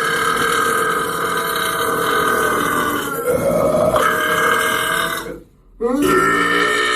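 A man burping: one long, drawn-out burp that shifts in tone partway through and ends about five and a half seconds in, then a second long burp starting straight after.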